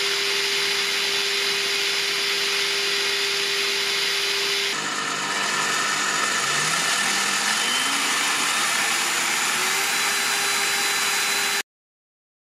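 Parkside PTBM 710 A1 bench pillar drill running, a steady motor hum with a constant whine. After an abrupt change about five seconds in, it runs on and its whine rises in pitch as the motor speeds up, loud enough to read 73 to 90 dB at 10 cm. The sound cuts off abruptly near the end.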